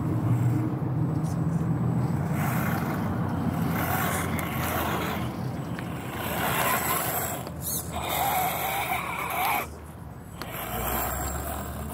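Electric drive motor and gearbox of a scale RC rock crawler whining and grinding as it climbs a dirt slope. The pitch rises and falls with the throttle a few times in the second half, and it drops off shortly before the end.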